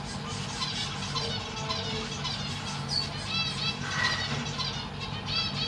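Zebra finches calling in their cage: a stream of short chirps, with two louder runs of quick rising-and-falling calls about three and a half seconds in and again near the end, over a steady low hum.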